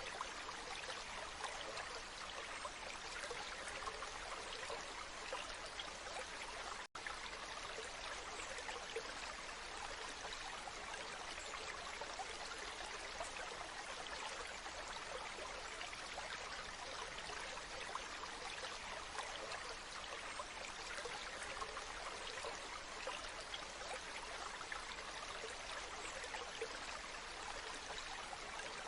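Waterfall: a steady, even rush of falling water, broken by a split-second dropout about seven seconds in.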